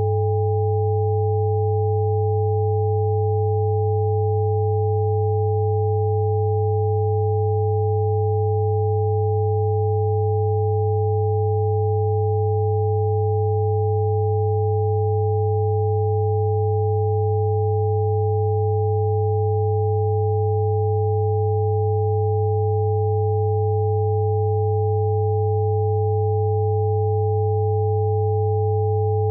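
Steady electronic sine tones held without any change: a strong low hum with two fainter, higher pure tones above it, a healing-frequency tone for sleep.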